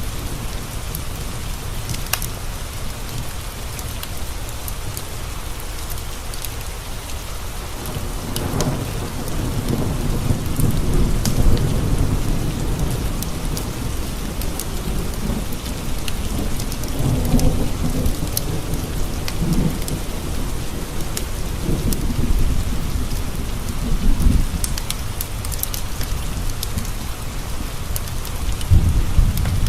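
Steady heavy rain with thunder rolling and rumbling in several long swells from about a quarter of the way in. Scattered sharp crackles from a wood fire sit on top.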